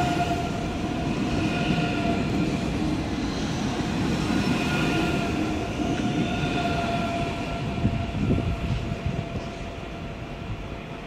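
An ICE high-speed train running past close by: a steady rumble of wheels on rails with a faint whine over it, dropping off about eight or nine seconds in.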